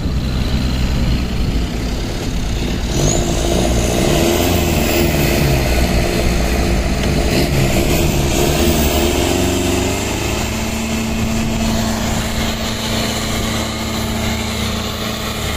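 Off-road 4x4 engine revving up and down under load while towing a stuck vehicle through deep snow on a rope, then holding a steady pitch from about ten seconds in.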